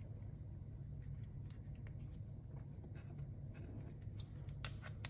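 Small hex key turning tiny screws into a plastic key fob case: faint scratching and light ticks, with a few sharper clicks near the end.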